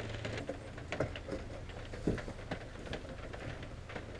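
Scattered light clicks and taps from hands working on the stereo's wiring and connections, over a steady low hum.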